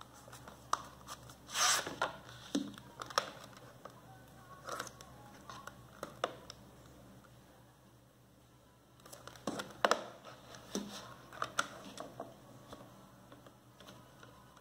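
Hard plastic CD jewel case being handled, turned over and opened: scattered clicks and taps with short scraping rustles. A louder scrape comes about two seconds in, and a cluster of sharper clicks about ten seconds in.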